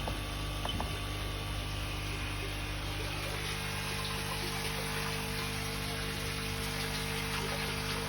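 Pond water running steadily, with a low, steady hum underneath.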